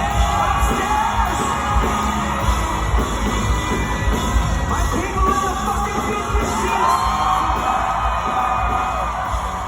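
Live rock band performing a song, with sung vocals over drums and guitars and the crowd yelling along.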